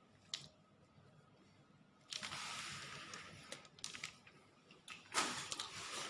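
Close-up eating sounds: a few small clicks and two longer, noisy scraping or rustling stretches, one about two seconds in and a louder one near the end, as food is handled and eaten.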